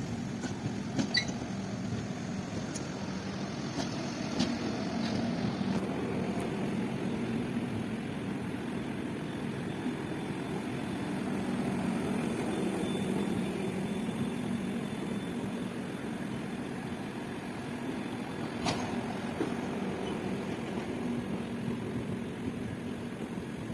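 Indian Railways LHB passenger coaches rolling slowly past along a platform: a steady low rumble of wheels on rail, with a few sharp clicks as wheels cross rail joints.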